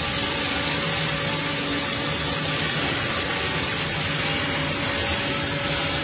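Metal-cutting machine running steadily: an even noise with faint steady tones underneath.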